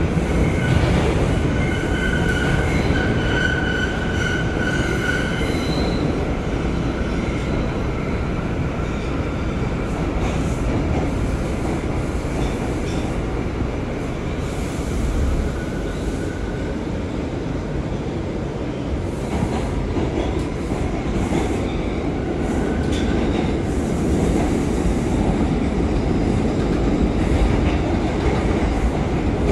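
R179 subway train running through a tunnel, heard on board: a steady rumble of wheels on rail, with a high wheel squeal over the first few seconds.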